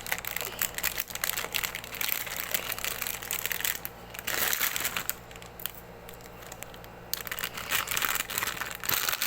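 Crinkling, crackling handling noise as slime kit items are handled, dense with small clicks and easing off for a couple of seconds about five seconds in.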